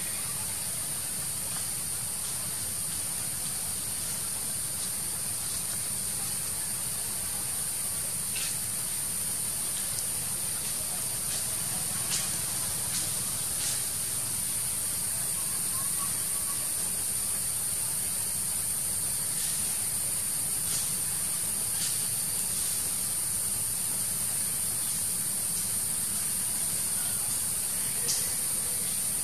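Steady high-pitched drone of forest insects, with a few faint clicks scattered through.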